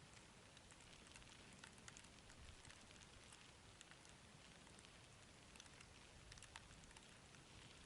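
Near silence: a faint hiss with scattered light ticks and patters.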